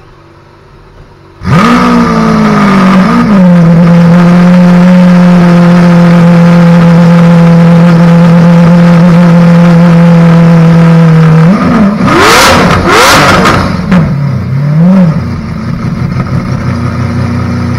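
Lamborghini Aventador SV's V12 starting up about a second and a half in with a sudden loud flare of revs, then settling to a steady fast idle. Near the end the throttle is blipped several times in quick succession before the engine drops to a lower idle.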